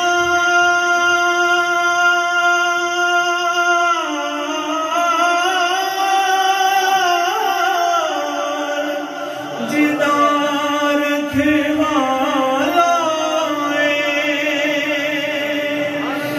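A man singing devotional verses into a microphone in a drawn-out, ornamented style. He holds one note for about four seconds, then moves into a winding melody with vibrato.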